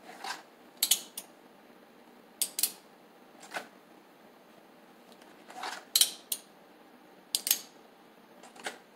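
Replica Remington New Model Army revolver drawn from and pushed back into a stiff leather cross-draw holster: a series of short, sharp clicks and scrapes of metal against leather and belt, often in pairs, every second or so.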